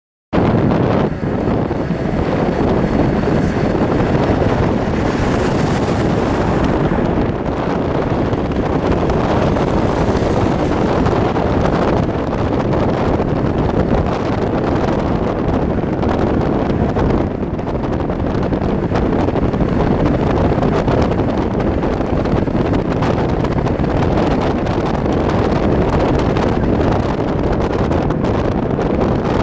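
Wind buffeting the microphone over the road and engine rumble of a moving vehicle, a loud, steady rush that cuts in suddenly at the start.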